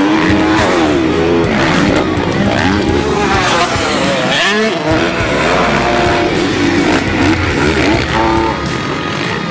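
Motocross bike engines revving hard, their pitch rising and falling again and again with throttle and gear changes as the bikes pass.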